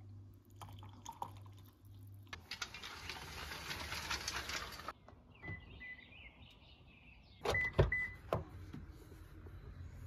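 Coffee poured from a glass jug into a steel flask, a few seconds of splashing. After it come faint chirps with a few short beeps, and then a couple of loud thumps.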